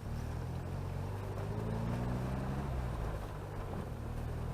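Chevrolet Chevette's four-cylinder engine running as the car drives, its pitch rising gradually in the first half.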